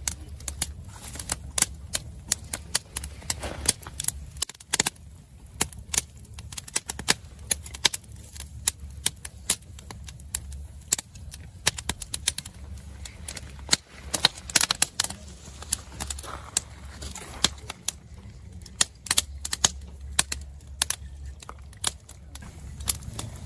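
Split-wood kindling fire crackling, with sharp, irregular pops and snaps several times a second over a steady low rumble.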